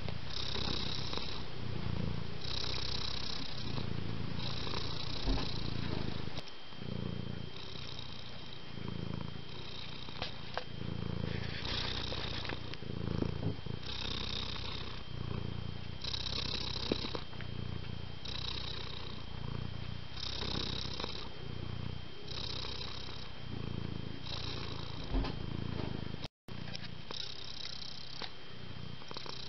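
Domestic cat purring steadily, the purr swelling and easing about every two seconds with its breaths. A couple of light knocks are heard, and the sound cuts out for a moment near the end.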